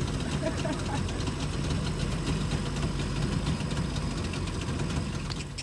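A motor engine running steadily with a low, even hum that stops abruptly at the end.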